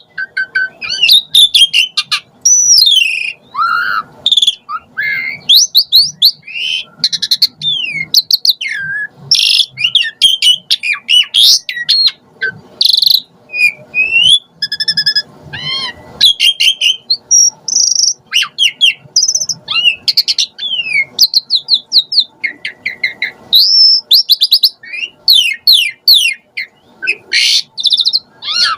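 Pied starling (jalak suren) in full song: a loud, unbroken run of varied whistles, rising and falling glides, rapid chatters and clicks.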